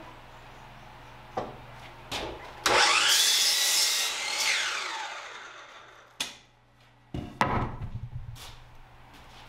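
Hercules sliding compound miter saw switched on about three seconds in, its motor whine rising as the blade cuts through a wooden framing board, then falling away as it winds down. A few knocks come before the cut, and a clatter of the board and offcut being handled near the end.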